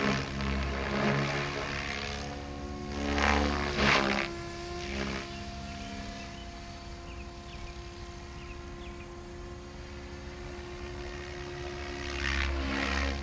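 Goblin 700 radio-controlled helicopter in flight: a steady whine from its rotor and drivetrain, swelling louder about three to four seconds in and again near the end.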